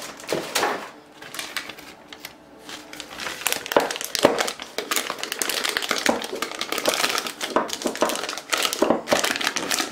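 Plastic piping bag crinkling and rustling as fluffy slime is loaded into it, with many irregular crackles and clicks; sparse for the first few seconds, then busier from about three seconds in.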